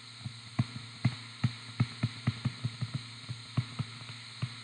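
A pen stylus tapping against a touchscreen as words are handwritten on it: a string of short, irregular soft taps, roughly three or four a second, over a steady low hum.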